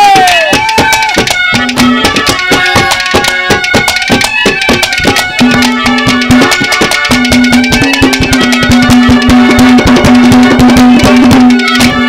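Haryanvi ragni accompaniment playing an instrumental interlude: fast, busy hand-drum strokes under a melody that holds long steady notes.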